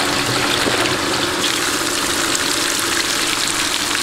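Water from a motor-pumped hose splashing into an aluminium bowl of chicken pieces as they are rinsed, a steady rushing spatter, then the rinse water poured out of the bowl onto the ground.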